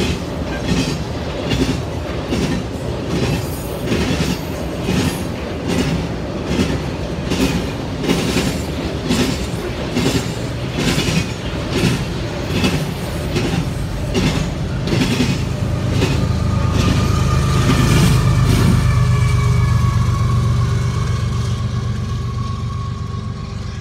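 CSX intermodal freight train's trailer-laden flatcars rolling past at speed, wheels clicking over rail joints about twice a second. In the last several seconds the clicking gives way to a louder, steady low rumble with a faint thin whine above it.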